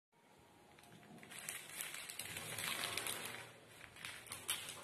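Plastic courier mailer bag crinkling and crackling as hands handle it and pull at its flap to open it, growing louder over the first few seconds.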